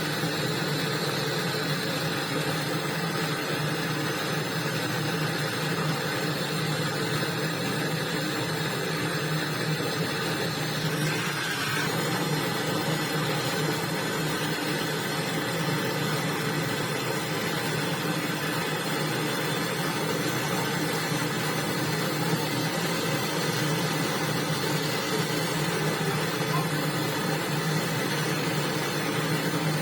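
A machine's motor running steadily with a hum; a faint high whine in it stops about a third of the way through.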